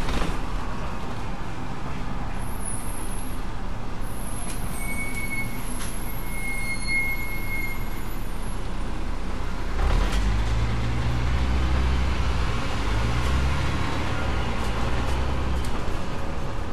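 Double-decker bus running, heard from the upper deck: steady engine and road noise. A thin high whistle sounds for a few seconds near the middle. From about ten seconds in, the engine note grows deeper and louder as the engine works harder for several seconds.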